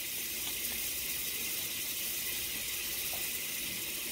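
Half a stick of butter melting and sizzling in hot oil left over from frying chicken in a skillet: a steady, even hiss.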